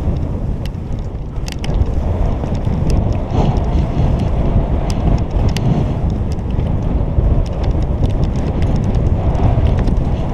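Wind buffeting the microphone of a camera carried downhill by a moving skier, a loud, steady low rumble with scattered light clicks and ticks.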